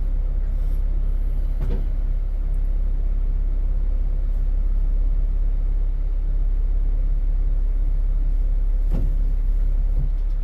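Vehicle engine idling steadily with a low, even hum, with a couple of faint knocks over it.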